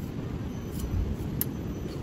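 Steady low rumble of wind buffeting the microphone, with two faint clicks about half a second apart near the middle.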